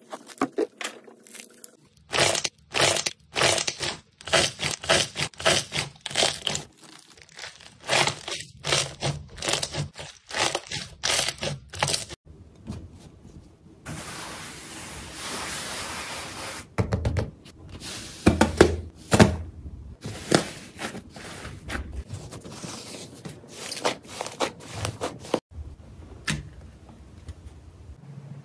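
Slime being pressed, pulled and squeezed by hand: runs of sharp crackling pops and sticky clicks, with a few seconds of steady rustling hiss about halfway through.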